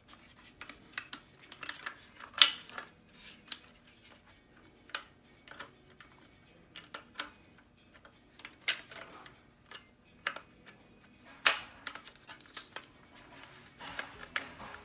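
Scooter parts being handled and fitted together by hand: irregular small clicks and clinks, with a sharper knock about two and a half seconds in and another near the end.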